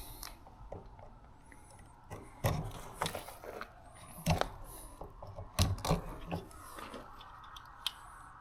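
Clicks, knocks and rattles of a work light being handled and set up, with several louder knocks between about two and six seconds in.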